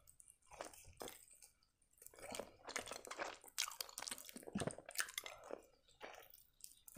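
A person biting into a crisp deep-fried cheburek and chewing it, with quiet, irregular crunching of the fried pastry.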